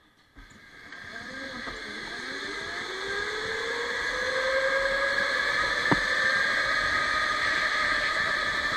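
Electric go-kart's motor whining as the kart pulls away and accelerates, the whine rising in pitch and growing louder over the first few seconds, then holding steady. A single sharp knock about six seconds in.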